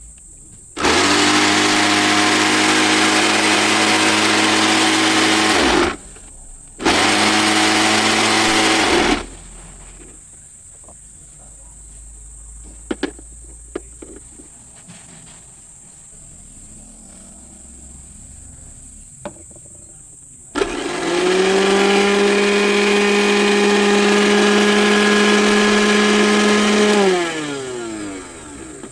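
Electric mixer grinder (juicer grinder) motor switched on and running at full speed three times: two runs close together, then a longer one that winds down with a falling pitch when switched off. A few sharp clicks fall in the quieter stretch between runs.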